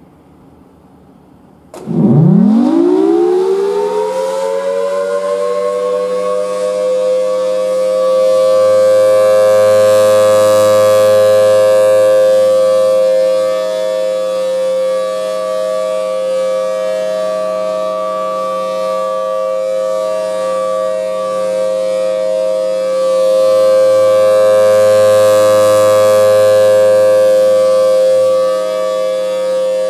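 Federal Signal Thunderbolt 1000T tornado siren starting up about two seconds in, its pitch climbing fast and then holding a steady chord of two notes. It grows louder and eases off twice as the rotating horn sweeps past.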